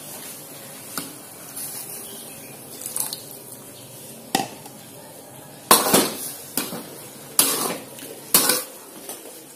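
A metal spatula scraping and clanking against a thin aluminium wok as chicken and melinjo leaves in water are stirred: about seven separate strokes, the loudest bunched from about six seconds in. A low steady sizzle runs underneath.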